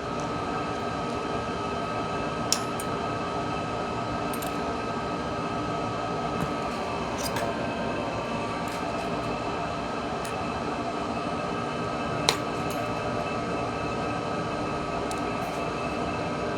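A steady machine-like hum with several steady tones in it, and a few small sharp clicks; the loudest clicks come about two and a half seconds in and about twelve seconds in.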